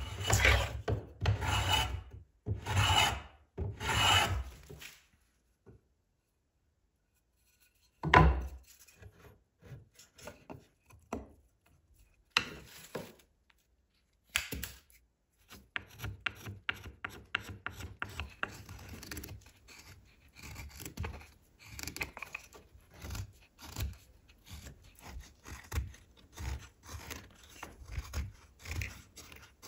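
A hand plane shaving a wooden hammer handle in about five quick strokes, then a single loud thump about 8 seconds in. From about halfway on, a pocket knife pares the end of the wooden handle in many short scraping cuts.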